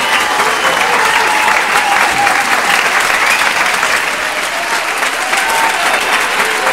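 Audience applauding steadily in a hall, a dense patter of clapping, with a few voices calling out over it.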